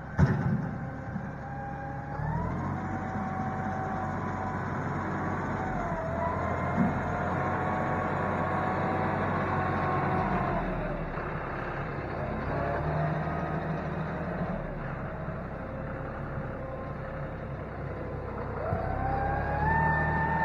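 John Deere utility tractor's diesel engine running under load as it drags a rear box blade through loose clay and sand, with a steady whine that steps up and down in pitch several times as the revs change. A sharp knock comes just after the start.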